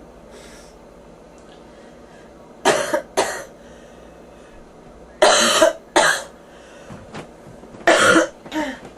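A person coughing from a bronchitis infection, in three bouts a couple of seconds apart, each bout a harsh cough followed quickly by a shorter one.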